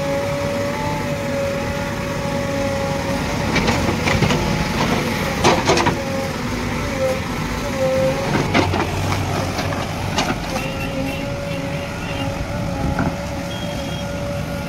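JCB 3DX backhoe loader's diesel engine running under load with a steady whine that dips in pitch a few times, as the backhoe digs out a tree stump. Several sharp knocks of the bucket against the stump and rubble come through over the middle.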